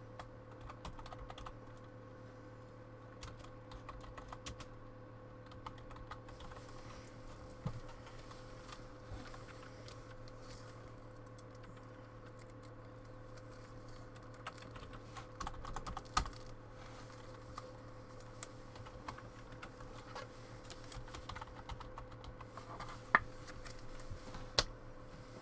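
Faint, irregular clicking of typing on a computer keyboard, over a steady low electrical hum, with a few sharper single clicks in the second half.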